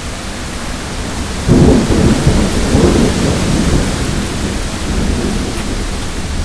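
Steady rain with a loud roll of thunder breaking in about a second and a half in, rumbling for a few seconds and slowly dying away.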